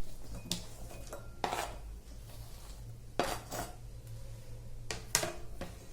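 Kitchenware clinking and knocking against a mixing bowl as salad ingredients are tipped in: about five separate knocks spread out, over a low steady hum.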